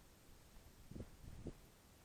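Near silence, with two faint low bumps about a second in and half a second later.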